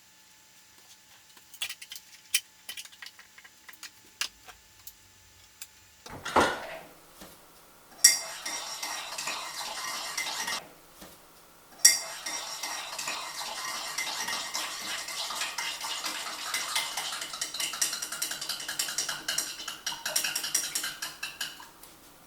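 Dishes and cutlery clinking and clattering. A few scattered clinks at first, then busy, continuous clatter from about eight seconds in, with a brief pause just before the middle.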